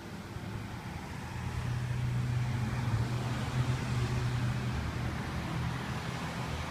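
A road vehicle going by: a low engine hum that swells about a second and a half in and slowly eases off.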